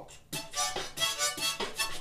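Harmonica played in short rhythmic chords, about four a second, beginning a moment in.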